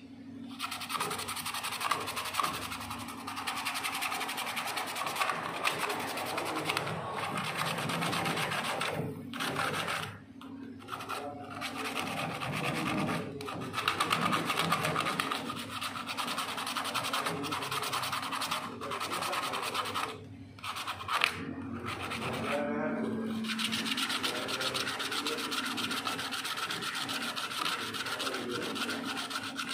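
Sandpaper rubbed rapidly back and forth on a copper refrigerator pipe, scraping it clean at the gas-charging valve joint to get it ready for brazing. The scraping runs on with a few brief pauses.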